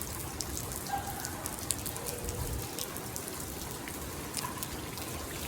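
Rain falling steadily, with many separate drops ticking sharply against surfaces.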